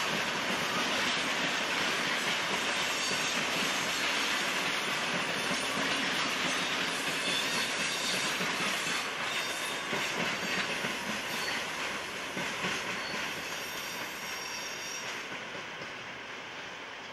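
Dutch electric passenger train rolling over station pointwork: a steady rumble of wheels on rail with faint high wheel squeal and a few clicks over rail joints. The sound fades over the last few seconds as the train moves away.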